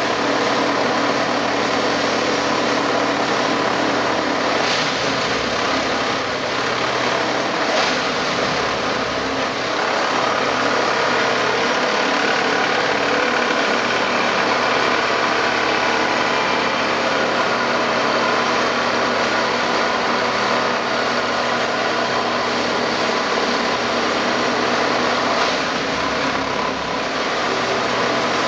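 Plasser & Theurer 08-32 Unimat 4S track tamping machine running steadily as it tamps a railway switch: diesel engine and hydraulics with the tamping units working the ballast, a dense, unbroken mechanical din with a few faint knocks.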